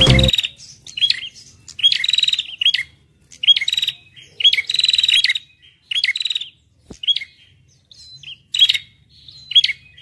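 Small songbirds singing: sharp, rapid trilled phrases of half a second to a second, repeating every second or so with short gaps.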